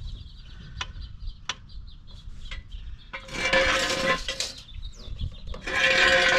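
A farm animal calling twice, each call about a second long, after a few sharp clicks.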